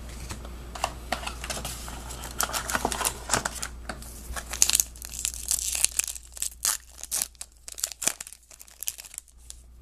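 A trading-card pack wrapper being torn open and crinkled by hand: a dense run of sharp crackles and rustles that thins to scattered clicks near the end.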